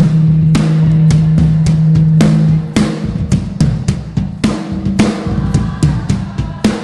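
Live worship band playing: a drum kit beating with sharp hits, over a deep held bass note that gives way after about two and a half seconds to shorter bass notes.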